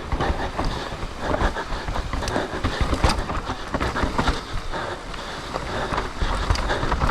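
Mountain bike descending a rough dirt trail: steady rumble of tyres over the ground with frequent rattles and knocks from the bike, and wind on the microphone.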